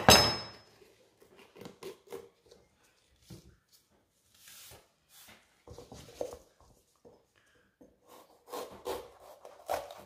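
Chef's knife and red bell pepper on a wooden cutting board: a sharp knock at the start, then scattered light taps and scrapes as the stem and seed core are pulled out, and near the end the blade cutting lengthwise through the pepper against the board.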